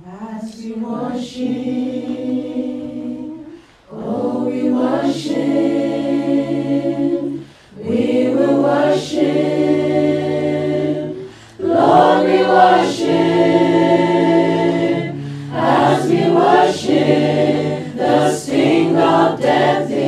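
A group of voices singing together a cappella in harmony, with long held notes in phrases of a few seconds and short breaks between phrases.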